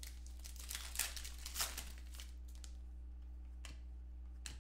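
Foil trading-card pack being torn open and crinkled: a rustling burst of about two seconds near the start, loudest twice in quick succession, then a couple of light clicks as the cards are handled. A steady low hum runs underneath.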